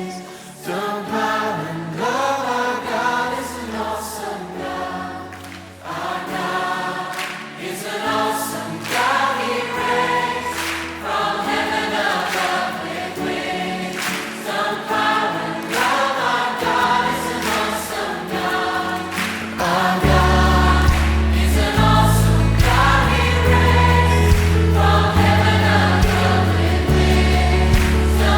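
Gospel choir singing in harmony over instrumental backing. About two-thirds of the way through, a heavy bass line comes in and the music grows louder.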